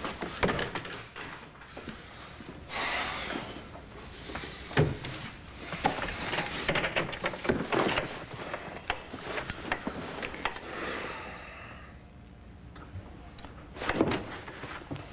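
Someone handling things at a desk: papers rustling and objects knocking and clunking, with a sharper knock about five seconds in and a thud near the end.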